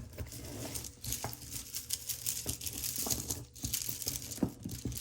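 Crinkling of packaging with many small clicks and rattles as pieces of costume jewelry are picked through by hand.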